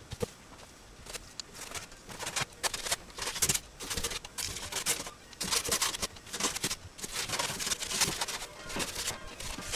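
Brush dabbing and stroking flat black water-based paint onto the inside of a plastic motorcycle fairing: irregular short scratchy strokes, several a second.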